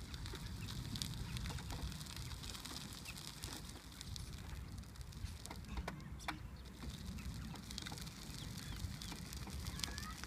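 Outdoor ambience on a gravel path: a steady low rumble of wind on the microphone, with scattered clicks of gravel crunching under the power wheelchair's tyres and underfoot.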